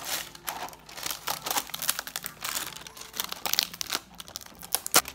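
Plastic wrapping crinkling and tearing as it is pulled off a supplement bottle, an irregular run of crackles with one sharp snap near the end.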